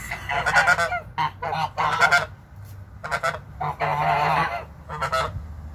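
White domestic geese honking in a string of about six calls, mostly short, with a longer one about four seconds in.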